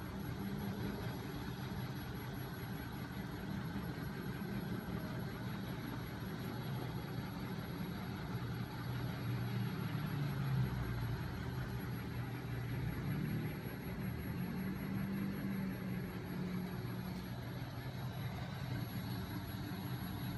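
Homemade magnet-motor rig running: a small 12 V electric motor turning a shaft of spinning magnet rotors coupled to a 5 kg flywheel, giving a steady low hum that wavers slightly in pitch.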